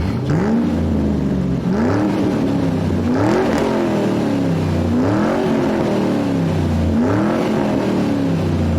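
Engine revved up and let back down about five times in a row, each rev a rising then falling pitch.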